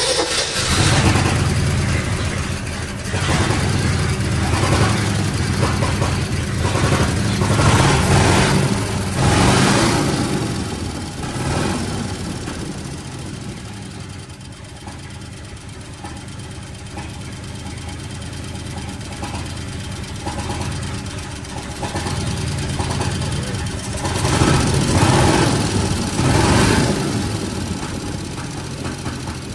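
1970 Ford F250's engine running with the hood up while the carburetor is worked by hand, speeding up and settling back several times: near the start, about eight to ten seconds in, and again near the end. The carburetor's power valve has just been switched from manifold vacuum to see if that makes it run better.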